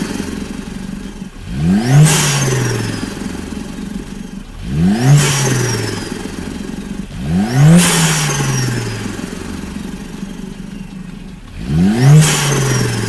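Mercedes-AMG A45 S turbocharged 2.0-litre four-cylinder, fitted with a Fogiago dry-carbon open air intake, free-revved four times. Each blip climbs sharply and falls back slowly, with a high whistle falling away after each.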